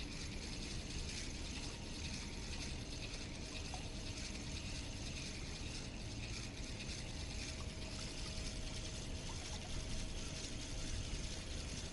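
Spinning reel cranked steadily, its gears and anti-reverse clicking in a continuous fine ratchet-like whir as a lure is retrieved.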